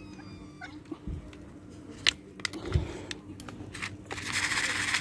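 A few sharp clicks and knocks, then about a second of loud crackling rustle near the end.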